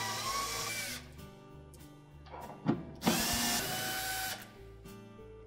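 Milwaukee M12 cordless driver running twice, about a second each, backing out the screws that hold a washer's circulation pump to the tub. Each run is a motor whine that climbs in pitch as it spins up.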